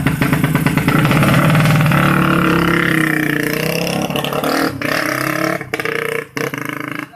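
Tuned 135cc motorcycle race engine being revved hard, its pitch rising and then falling. The sound drops out sharply a few times near the end as the throttle is let off.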